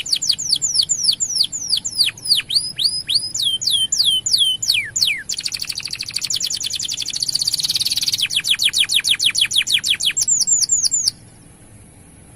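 Male domestic canary singing a long, loud song of rapid downward-sweeping whistled notes and fast trills, changing phrase every second or two. The song stops abruptly near the end.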